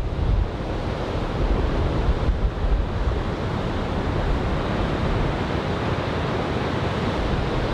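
Surf from big typhoon swell washing and breaking in a steady roar, with strong wind buffeting the microphone in low gusts.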